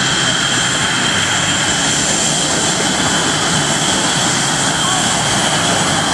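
Blue Angels F/A-18 Hornet jets taxiing past, their twin turbofan engines running with a steady rush and a constant high-pitched whine.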